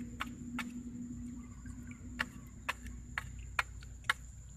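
Short, sharp clicks and knocks, roughly two a second with a pause between, as a mud-coated stick is worked against the upright stakes of a stick-fence fish trap in a shallow ditch. A steady high insect whine runs under them.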